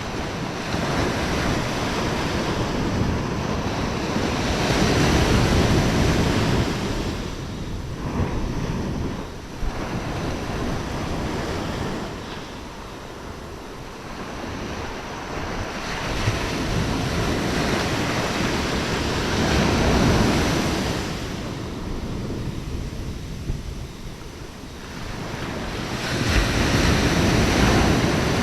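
Sea waves washing in with wind noise on the microphone, swelling and easing in slow surges several seconds apart.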